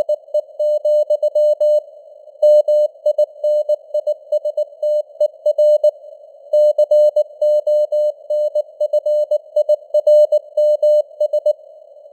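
Morse code sent at 19 words per minute: a single mid-pitched tone keyed on and off in dots and dashes, over a narrow band of hiss that simulates radio noise. Longer gaps mark word breaks, about two seconds in, near the middle and near the end.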